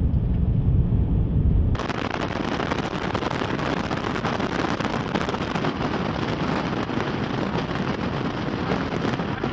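A deep rumble, then about two seconds in an abrupt switch to strong wind rushing hard over the microphone in a steady, loud roar of noise.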